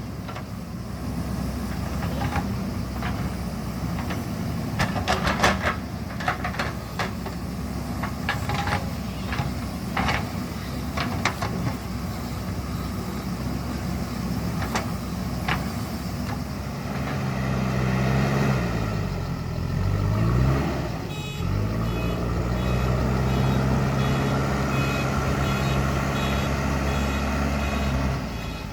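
JCB 3DX Super backhoe loader's diesel engine working, with repeated clanks and knocks over the engine in the first half. About two-thirds through, the engine note falls and climbs again, then holds steady while a reversing alarm beeps repeatedly.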